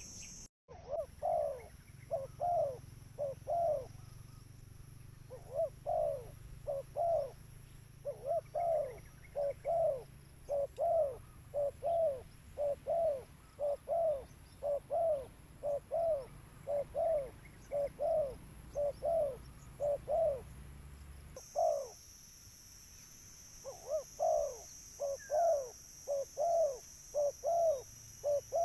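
Spotted dove (tekukur) cooing over and over, short low coo notes in quick runs broken by brief pauses, as a recorded call played to lure doves.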